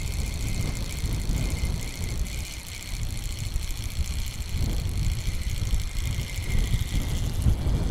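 Wind buffeting the microphone, an uneven low rumble that rises and falls in gusts. Over it sits a steady high-pitched sound that fades out near the end.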